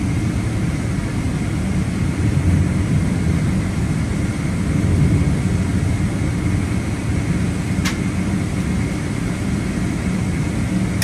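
Boeing 777-300ER taxiing, heard from inside the cabin: the GE90-115B engines running at taxi power under a steady low rumble, with a faint steady whine. A single short click about eight seconds in.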